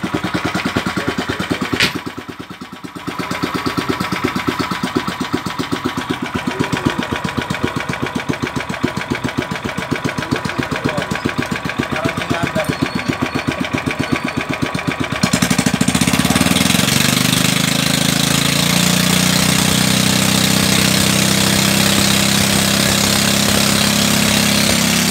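A new Loncin 10 HP single-cylinder petrol engine being test-run on the bench: it runs with a steady pulsing beat, dips briefly about two seconds in, and about fifteen seconds in the throttle is opened and it runs faster and louder, holding there.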